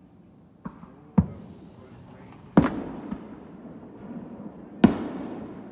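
Fireworks exploding: four sharp bangs, two small ones in the first second or so and then two louder ones about two seconds apart, each loud bang trailing off in an echo.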